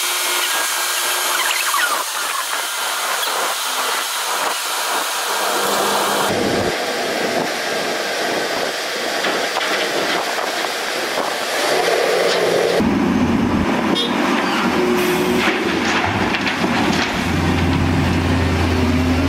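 Volvo crawler excavator and Volvo articulated dump truck at work, with diesel engines running as the excavator digs and loads the truck. About two-thirds through, a deep steady engine drone comes in.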